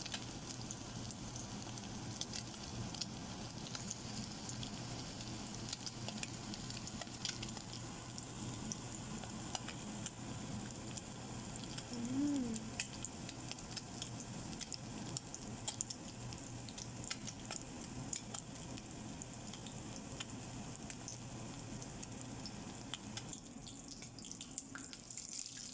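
Fish patties frying in hot oil in a stainless steel pot: a steady sizzle with frequent small pops and crackles.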